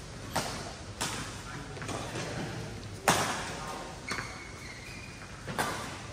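Badminton racket strings striking a shuttlecock in a rally, five sharp cracks that echo around a large hall, the loudest about three seconds in.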